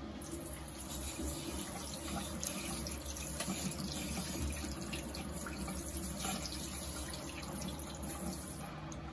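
Bathroom sink faucet running, its stream splashing over hands being rinsed of soap into the basin, with a steady hiss; it is shut off shortly before the end.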